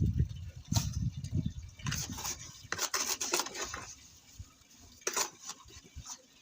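Irregular scraping and clinking of a hand tool working wet mortar mix against a plastic bucket and basin, busiest in the first few seconds and fainter toward the end.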